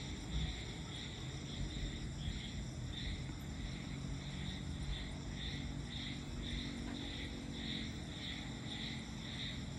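Night insects chirping in a steady pulsing chorus, about two pulses a second, over a low steady rumble.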